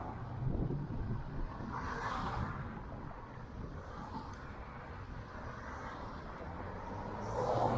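Road traffic noise, swelling as vehicles pass, loudest near the end.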